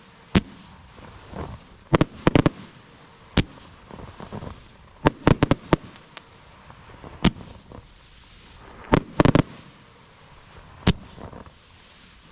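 Fan-shaped consumer fireworks cake with blue-to-red strobe effects firing. Sharp bangs come at uneven gaps, some single and some in quick runs of two to five, with a steady hiss between them.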